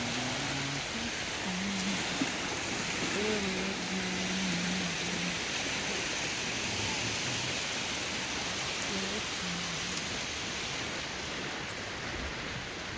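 Small waves washing steadily onto a beach with an incoming tide, a continuous hiss of surf.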